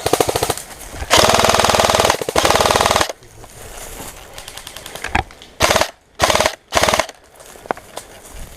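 Airsoft electric gun (AEG) firing full-auto: three long bursts back to back in the first three seconds, then three short bursts in quick succession about two seconds later, each a rapid, even rattle of the gearbox cycling.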